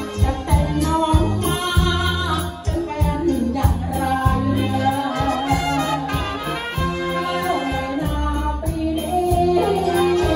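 Live luk thung band playing a song: drums, bass, saxophones and trumpets amplified through a PA, with a man singing over them.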